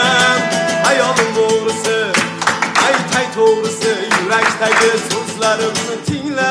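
A man's held sung note with vibrato ends in the first half-second, then an acoustic guitar is strummed and picked through an instrumental passage, with hand claps along.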